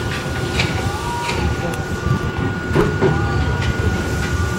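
Tobu 6050 series electric train rolling slowly into a terminal platform, with a low running rumble and wheels clicking over rail joints and points. A thin steady high tone is heard throughout.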